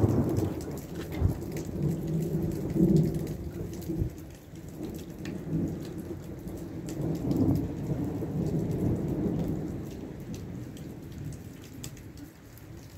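Thunder rumbling over falling rain, the low rumble swelling in several waves and dying away near the end.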